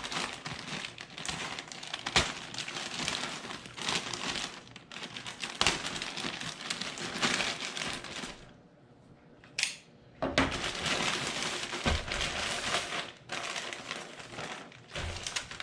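Plastic bag crinkling and rustling as it is handled and opened, with a quieter pause of about two seconds just past the middle.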